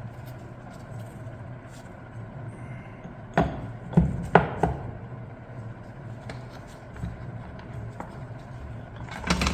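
Heavy metal transmission parts, gears and clutch-pack pieces, being handled and set down on a bench: a handful of sharp knocks and clinks about halfway through, over a steady low hum.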